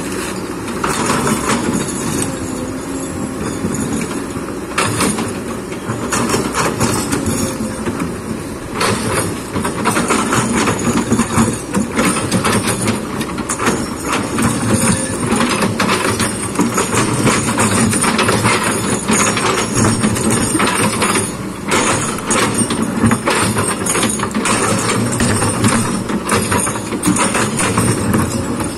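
Kobelco excavator's diesel engine running steadily under work, with frequent clanks and knocks from the digging, coming thicker after about nine seconds.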